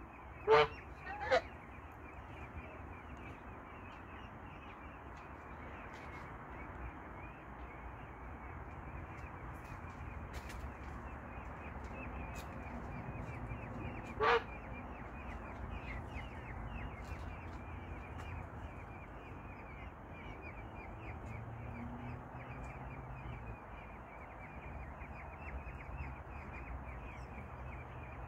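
Peafowl calling: three short, loud honking calls, two close together near the start and one about halfway through, over a steady, rapid, high chirring in the background.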